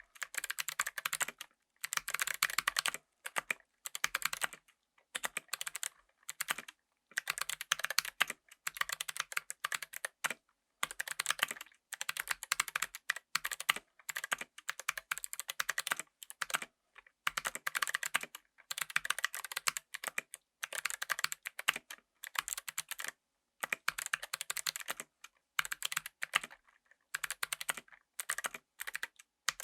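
Mechanical keyboard with Kailh Box White clicky switches being typed on: rapid, crisp clicks from the switches' click bars come in bursts of a second or two, with short pauses between them.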